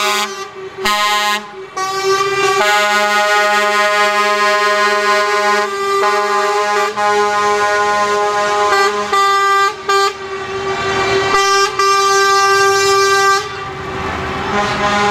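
Truck air horns honking in long blasts, several horns sounding together as a chord. Short gaps break the blasts in the first two seconds and a few times later, and the horns stop about thirteen seconds in.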